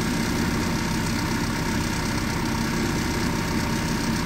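Unimog 416's six-cylinder diesel engine idling steadily while its onboard air compressor fills a tire.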